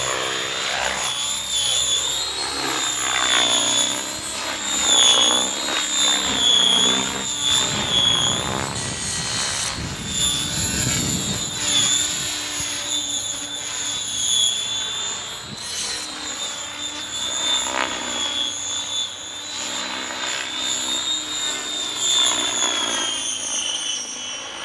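Electric RC helicopter in flight: a high motor and gear whine with rotor-blade chop, its pitch wavering and its loudness swelling and fading as the helicopter moves about.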